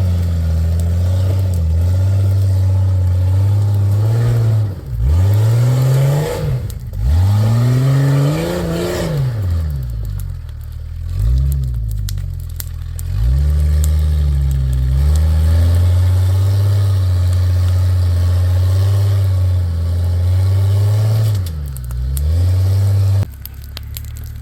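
Off-road vehicle engine working an obstacle, its revs repeatedly rising and falling as the throttle is fed on and off, then dropping off sharply near the end.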